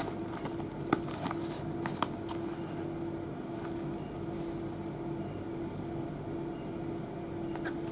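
A few light clicks and rubs from a cardboard radio box being turned over in the hands, over a steady hum.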